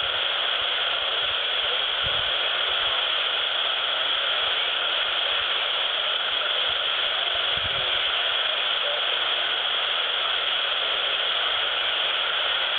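Steady hiss of band noise from an Albrecht AE 201S handheld CB radio's speaker, receiving on single sideband with no station transmitting.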